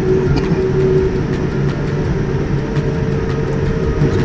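Cabin noise inside a Boeing 787-9 taxiing out to the runway: a steady engine hum over a low rumble, with a few faint light knocks.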